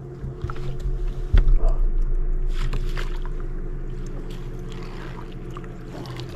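A hooked fish splashing at the surface beside a boat as it is brought in and netted, with a loud thump about a second and a half in. A steady low hum runs underneath.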